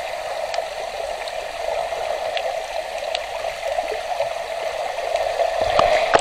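Swimming-pool water heard underwater: a muffled, steady rush with an even hum and a few faint ticks.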